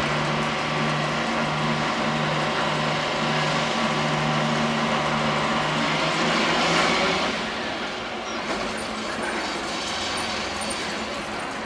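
Engine of a barge-mounted crane running under load while lifting a boat: a steady mechanical hum and hiss that swells to a peak about seven seconds in, then drops to a lower, even running noise.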